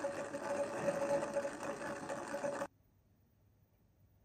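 Magical Movers Mulan spinner doll whirring steadily as it spins like a plastic top on a hard tabletop, with a constant hum-like tone. The whir cuts off suddenly about two and a half seconds in.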